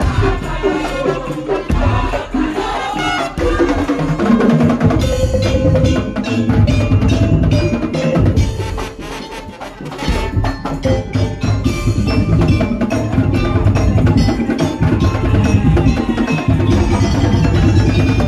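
Madurese tong-tong (ul daul) percussion ensemble playing: wooden slit drums in a driving rhythm with tuned metal percussion and drums. The music drops in level for about a second and a half around nine seconds in, then comes back at full strength.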